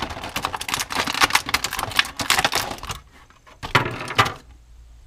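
Clear plastic blister packaging crackling and crinkling as hands pull toy figures out of it: a dense run of crackles for about three seconds, then two short bursts about a second later.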